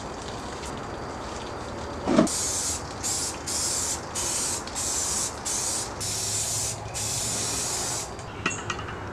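Aerosol spray can sprayed in a series of short hissing bursts, about eight, the last one the longest, as a coat goes onto a painted plywood box. A knock comes just before the first burst, and a few light clicks after the last.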